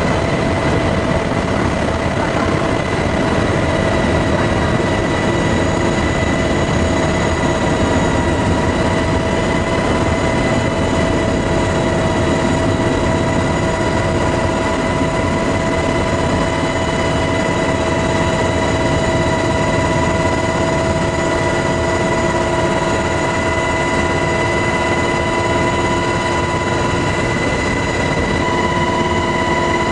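MH-60S Knighthawk helicopter in flight, heard from inside the cabin: a loud, steady rush of rotor and engine noise with several steady whining tones over it, one more tone joining about four seconds in.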